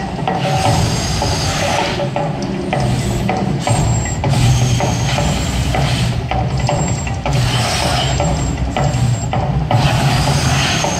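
The Mirage volcano show's eruption, loud and continuous: a low rumble and rattling percussive soundtrack from its speakers. A hissing rush swells every few seconds as the gas fire jets flare.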